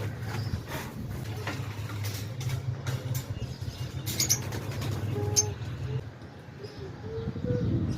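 Scattered clicks and knocks of cages and dishes being handled while the birds' water and feed are changed, over a steady low hum that stops about six seconds in. Pigeons can be heard cooing.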